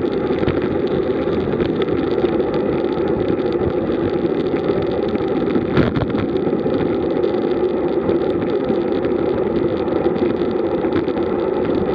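Steady rush of wind on the microphone and road-bike tyres rolling on asphalt at about 35–39 km/h in a group ride, with one brief knock about six seconds in.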